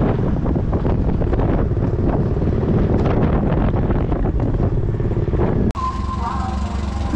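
Wind buffeting the microphone over a motor scooter running along a road. About five and a half seconds in it cuts suddenly to a quieter background with a steady low hum.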